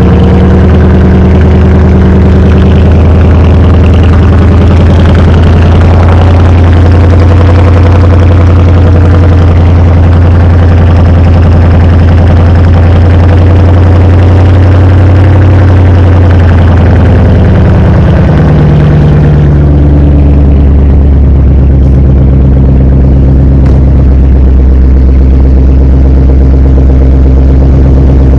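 A 2008 Ford Mustang GT's 4.6-litre V8 idling, its exhaust heard up close and loud. The idle note changes slightly about two-thirds of the way through.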